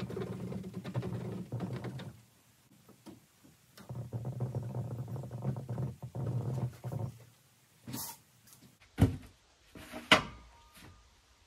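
A winch motor pulling under load, dragging a trailer along by its cable: it runs with a steady low hum for about two seconds, stops, then runs again for about three seconds. Three sharp knocks follow near the end.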